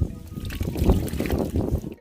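Wind buffeting the microphone: an uneven low rushing noise that cuts off suddenly at the end.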